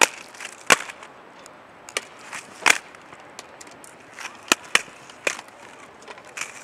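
Inline skates knocking and clacking on hard ground during flatland tricks: a series of sharp, irregularly spaced clacks as wheels and frames land and strike the surface.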